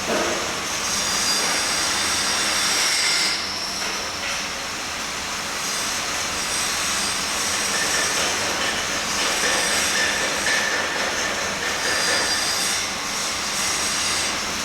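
Steady hiss and crackle of electric arc welding at work stations, with small swells and dips but no pauses.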